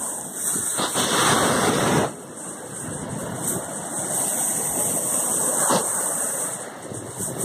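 Ocean surf washing in as a steady rush of water, with a louder surge from about one to two seconds in.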